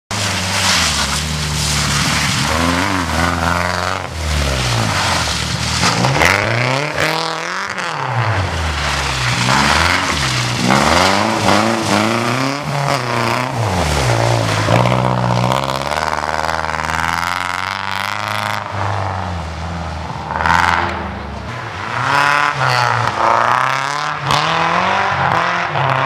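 BMW E36 318i rally car's four-cylinder engine being driven hard on a loose dirt track, its pitch climbing and then dropping back over and over as it revs through the gears and lifts off for corners.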